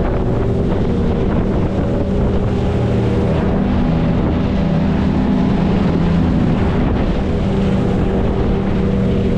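Outboard motor on an aluminum jon boat running at full throttle, a loud, steady engine note.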